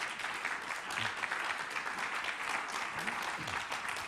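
A seated audience of a few dozen people applauding, clapping steadily.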